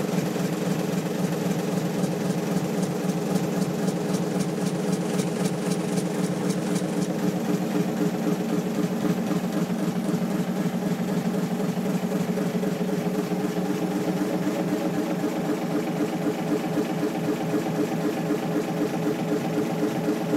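1930 Fairbanks Morse 450 hp six-cylinder two-stroke diesel engine running steadily, with a fast, even mechanical beat.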